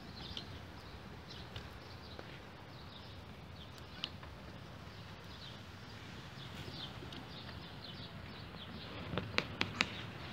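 Many short, high chirps from small animals in the background, with a few sharp clicks near the end.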